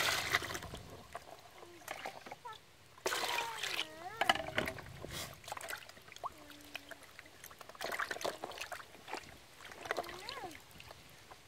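Water poured from a bowl splashing into a plastic basin of live eels, then sloshing and dribbling as hands rub and wash the eels. There are two loud gushes, one at the start and one about three seconds in.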